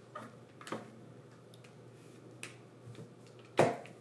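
A few light clicks and taps from plastic Play-Doh toy parts being handled, with one louder knock near the end.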